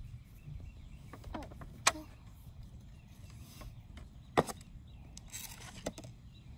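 Small plastic toy pieces clicking as they are handled and pressed together, with two sharp clicks standing out about two and four and a half seconds in, over a low steady rumble.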